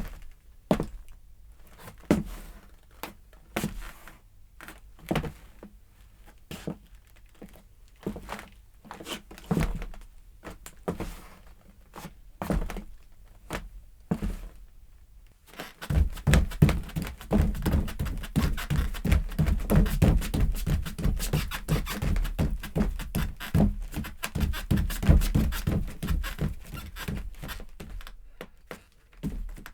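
Footsteps indoors, separate steps at a walking pace. About halfway through they turn much quicker and heavier, like fast stepping or running, and slow again near the end.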